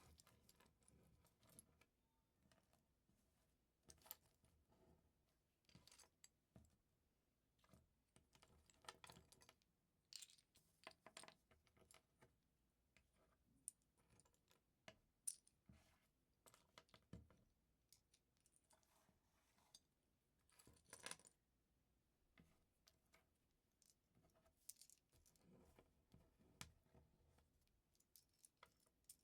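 Small plastic LEGO pieces being sorted by hand, clicking and clattering lightly against each other and the work surface in irregular short bursts.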